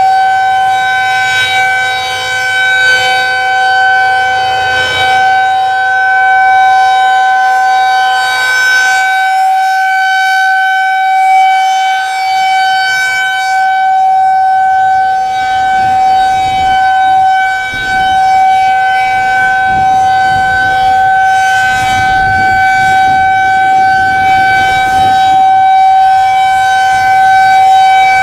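Federal Signal 2001-SRN electromechanical outdoor warning siren sounding a loud steady tone for a tornado siren test. It holds one pitch throughout, its loudness swelling and easing slightly.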